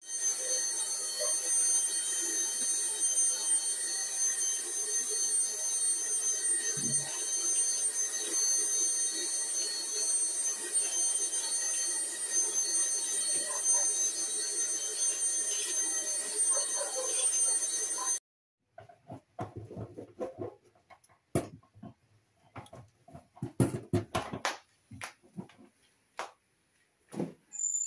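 A small handheld cordless motorised tool running steadily with a high whine, stopping abruptly after about 18 seconds. Then a wrench clinks and knocks against a stainless steel sink.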